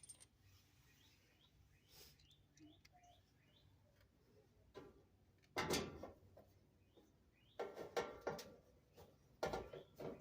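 Quiet handling noises of dryer parts and screws being fitted: a clatter about six seconds in, then several sharp knocks and rattles near the end.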